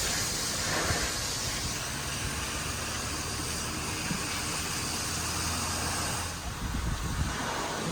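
High-pressure washer spray hissing against a truck's bodywork over the steady low hum of the machine. The hiss is strongest for the first couple of seconds and drops away about six seconds in, leaving the hum.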